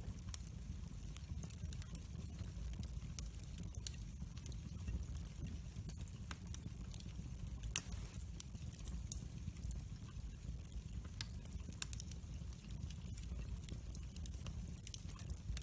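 Split-log wood fire burning in a metal fire pit: steady crackling with scattered sharp pops, the loudest about eight seconds in, over a low steady rumble.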